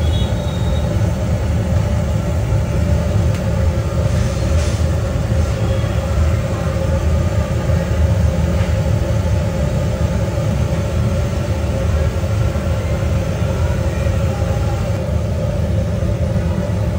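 Steady low rumble with a constant hum, unchanging throughout.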